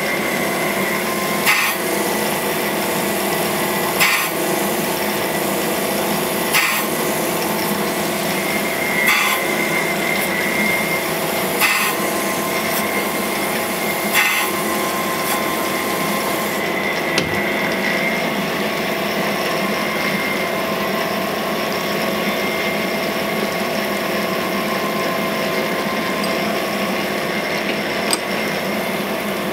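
Cam grinder's abrasive wheel grinding a lobe of a Ford FE solid roller camshaft: a hissing grind over the steady hum of the machine, with six brighter scrapes about two and a half seconds apart. About halfway through the grinding hiss falls away, and the machine keeps running.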